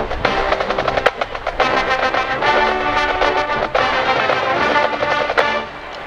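Full marching band playing: brass and drumline together, with sharp drum hits, cutting off about five and a half seconds in.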